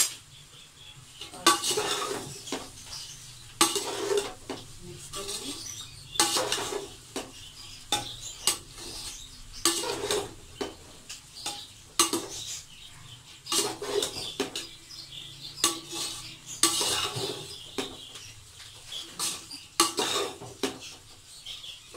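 Metal spatula scraping and clattering against an aluminium cooking pot as a pot of fried rice is stirred and tossed. It starts about a second and a half in and goes on in irregular strokes, roughly one a second.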